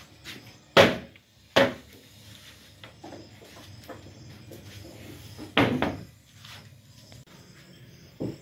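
Wooden cabinet flap door on gas springs being worked open and shut, giving sharp knocks: two about a second apart near the start, a double knock about halfway through, and one more near the end.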